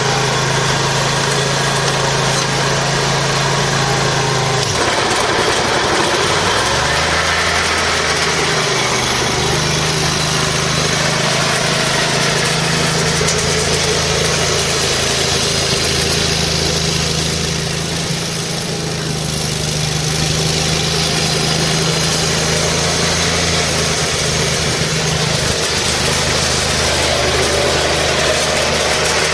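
Kohler Command 27 hp V-twin engine of an Exmark Lazer Z zero-turn mower running steadily. About five seconds in its speed drops and then climbs back up, and it changes speed again near the end.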